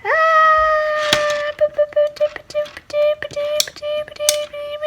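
A high voice holding one long steady note, rising into pitch at the start and breaking off briefly now and then, over quick, irregular clicks of small magnet balls snapping together.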